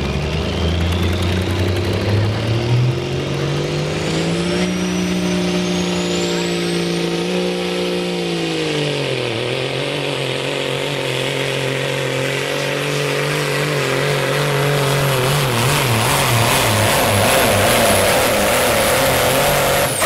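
Turbocharged diesel engine of a competition pulling truck at full throttle under load, dragging the sled. Its pitch climbs over the first few seconds with a high turbo whistle rising alongside, drops once about eight seconds in, then holds steady and grows louder until it cuts off at the end.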